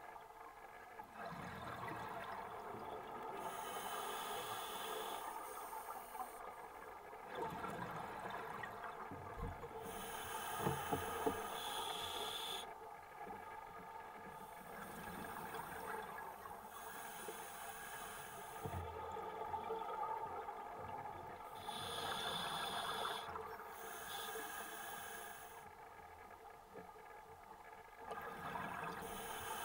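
Scuba diver breathing through a regulator underwater: a hiss with each inhale and bubbling with each exhale, in slow breaths several seconds apart.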